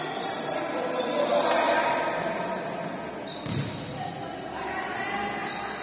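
Indistinct shouting from players and spectators in a large sports hall, with a futsal ball thudding once off a foot or the floor about three and a half seconds in.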